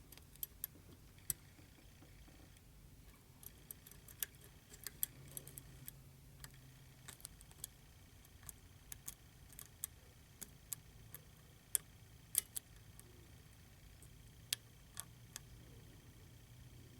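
Small steel hook pick and tension wrench working the sliders inside a Bell slider lock: faint, irregular light clicks and ticks, a couple a second, over a faint low hum.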